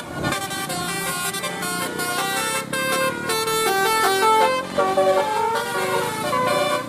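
A bus's telolet basuri horn, a multi-tone melodic horn, playing a quick tune of short notes stepping up and down.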